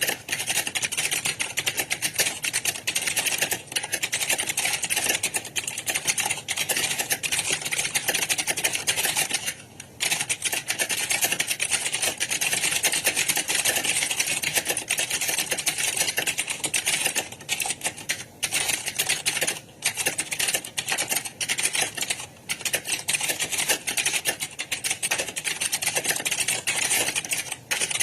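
Computer keyboard typing fast: a dense, continuous clatter of key presses, with a few short pauses about ten seconds in and again around eighteen to twenty-two seconds.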